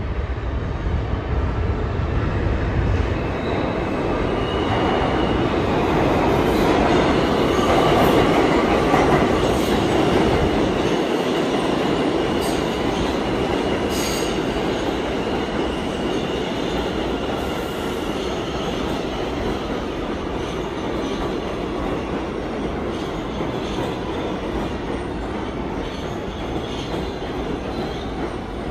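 A New York City Subway R211T train pulling into an underground station, with wheels rumbling and squealing thinly on the rails. It grows louder as it comes in, is loudest about a third of the way through as the cars run past close by, then eases off.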